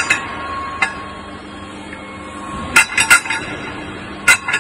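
Sharp metallic clinks of a steel overburden drill bit set (pilot bit and ring bit) being handled and set down: a couple at the start, a quick run of four about three seconds in, and another cluster near the end, over a faint steady hum.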